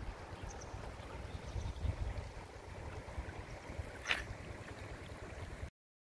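Outdoor ambience by a shallow rocky stream: wind rumbling on the microphone over a faint, even wash of water, with one short high sound about four seconds in. The sound cuts off abruptly near the end.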